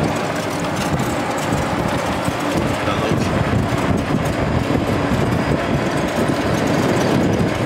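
Steady wind and road noise from riding in a moving open-sided shuttle cart, heaviest in the low end.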